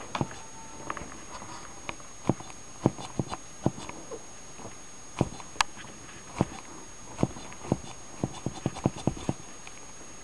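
A cat's teeth and claws clicking and tapping on a plastic turkey baster as it bites and swats at it: irregular sharp clicks, bunched more closely near the end.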